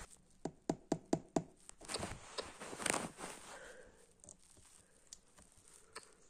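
Close handling noise: a quick run of five light taps about four a second, then a burst of rustling and knocks, fading to a few faint ticks.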